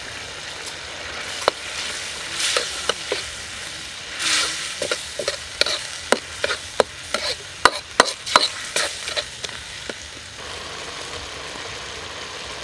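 Metal ladle stirring and scraping sweet and sour sauce in a wok, with a run of sharp clinks from about a second and a half in until about ten seconds in. Under it the simmering sauce sizzles and bubbles steadily.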